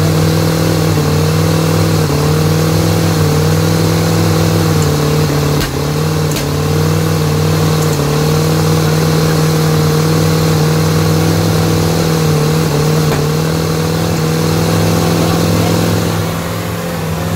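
MerCruiser 350 (5.7-litre V8) marine engine with throttle-body injection running rough, its speed wavering slightly and sagging briefly about six seconds in and again near the end. It is running with the fuel pressure sensor unplugged, and the mechanics suspect a fuel-pressure problem.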